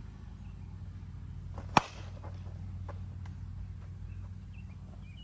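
A slowpitch softball bat striking a pitched softball: one sharp crack a little under two seconds in.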